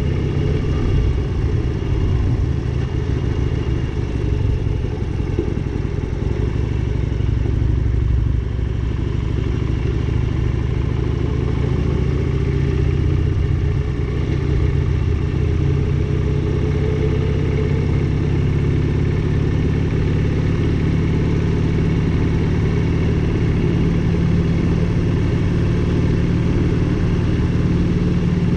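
Motorcycle engine running steadily while riding, its pitch drifting gently up and down with the throttle.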